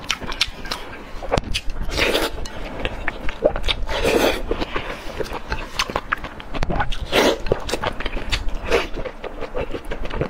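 Close-miked eating of soft food in chili sauce: wet chewing with many quick lip and mouth smacks and clicks, and a few longer, louder smacks.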